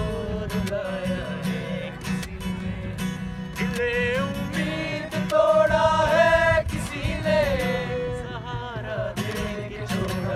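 Acoustic guitar strummed steadily as a man sings, with others in the group singing along. The voices rise to a long held note about halfway through.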